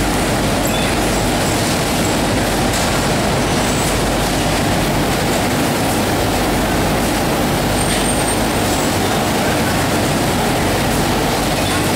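Girbau DRF duvet-cover feeder and the laundry machinery around it running steadily: a constant loud mechanical rushing and humming from rollers, belts and fans, with no pauses.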